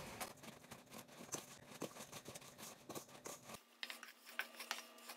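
Faint, irregular scraping and tapping of a spatula against a stainless steel mixing bowl as butter and sugar are beaten together.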